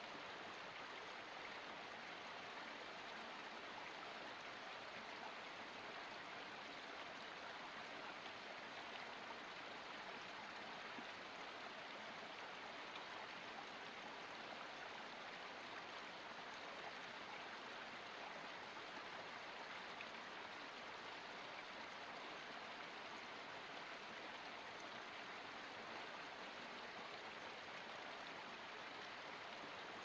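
Small forest stream running steadily over mossy rocks in a little cascade, an even, unbroken rush of water.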